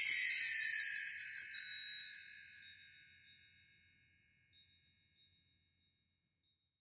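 A shimmering chime sound effect: high bell-like tones sweep down in pitch and fade out over about three seconds, followed by dead silence.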